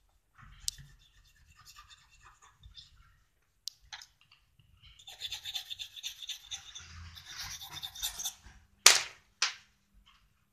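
Coloured pencil scratching as it shades back and forth across a bauble for a few seconds, after faint rubbing of a cotton bud blending in the colour. Two sharp knocks about half a second apart near the end are the loudest sounds.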